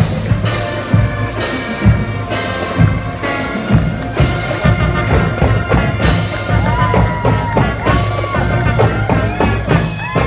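Marching band playing: sustained brass chords over a steady beat of drum hits, about two a second. In the last few seconds, whistles and cheering from the crowd come in over the music.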